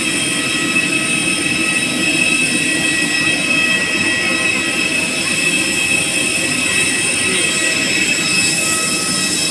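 Steady high-pitched turbine whine of jet aircraft on the apron, several steady tones over a low rumble. The engine in view is stopped, so the whine comes from other running aircraft machinery such as an auxiliary power unit or another jet's engines.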